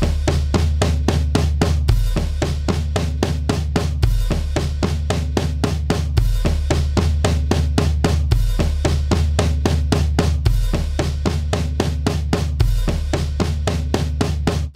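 Multitrack drum kit recording played back through a stereo compressor: a steady, fast pattern of kick, snare, toms and cymbals that stops abruptly at the end. The compressor's stereo link is switched during playback; unlinked, each side compresses on its own, the loud tom on the right clamps down the right channel, and the snare seems to shift to the left.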